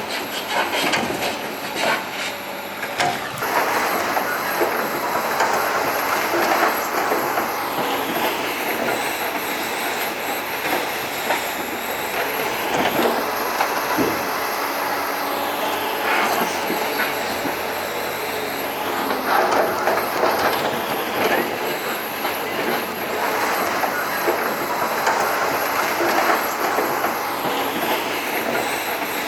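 Logging truck on the move: steady road and engine noise with continuous rattling and clattering, and squeaky metal noises now and then.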